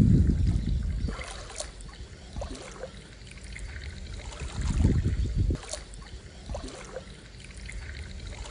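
Water sloshing and splashing, with low rumbles at the start and again around five seconds in.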